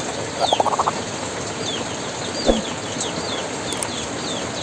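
Small birds chirping: a quick falling chirp repeated every half second or so, with a short run of rising notes about half a second in. A single brief thump falls about halfway through.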